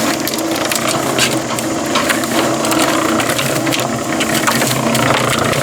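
Concrete mixer running with sand tumbling in the turning drum: a steady motor hum under continuous gritty rattling and clicking.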